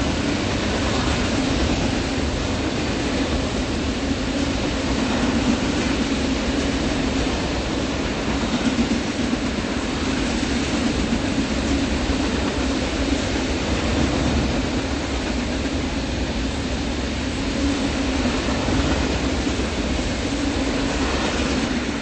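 BNSF train passing at speed: a steady rumble and clickety-clack of steel wheels on the rails.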